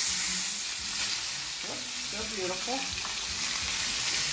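Salmon fillets sizzling steadily in a hot nonstick frying pan as they are turned over with tongs.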